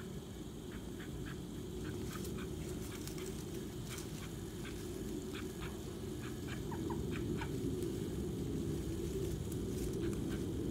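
Call duck making soft low quacking chatter, with scattered small clicks and rustles and a few short peeps a little past halfway.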